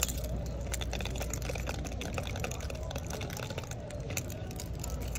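Fingers tapping and handling plastic-packaged items, giving quick, irregular sharp taps and light plastic crinkle, over a steady low hum.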